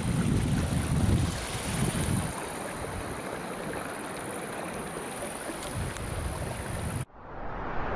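Wind rumbling on the camera microphone over a steady rushing hiss, with strong gusts in the first two seconds. The sound cuts off abruptly about seven seconds in and a different hiss swells up.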